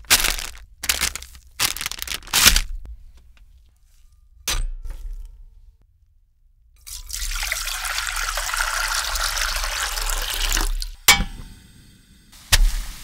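Plastic ramen packaging crackling as it is handled, then water poured steadily into a stainless steel pot for about four seconds, then the click of a gas stove burner lighting.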